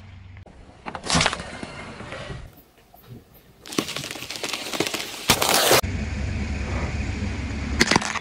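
Objects cracking and crunching under a car tyre in a run of short clips: a sharp crack about a second in, then a long crunching stretch as a tyre presses onto a watermelon, ending in a loud burst, and a low rumble with another crack near the end.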